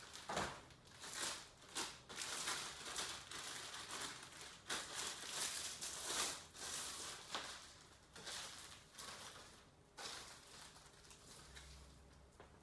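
Packaging crinkling and rustling in irregular bursts as a new cricket bat is unwrapped and handled.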